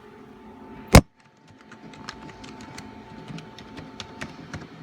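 Computer keyboard being typed on: one sharp click about a second in, then a run of light, irregular key taps, over a faint steady hum.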